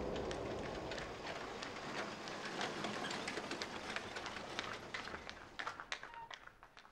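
A low rumble with dense clattering and crackling that fades away over several seconds.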